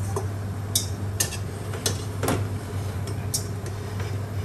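A stainless-steel colander knocking against a steel cooking pot as boiled spaghetti is lifted from it into the sauce: several sharp metallic clinks over a steady low hum.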